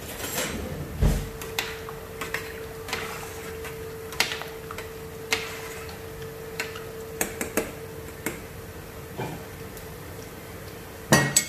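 Stirring rice and water in a stainless steel pot, the utensil giving irregular light clicks and taps against the pot's sides, with a louder cluster of knocks near the end. A steady faint hum runs underneath from about a second in.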